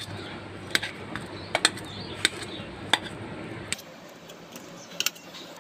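A steel knife blade clicking against a stainless-steel bowl as boiled potatoes are cut in it: a few sharp, separate metallic clicks spaced roughly a second apart.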